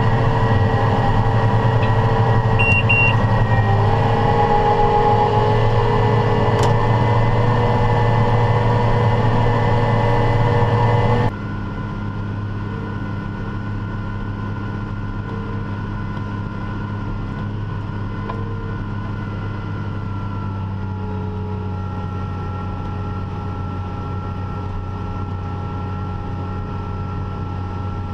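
Tractor engine running steadily while working ground. About eleven seconds in the sound cuts abruptly to a quieter, different steady engine drone.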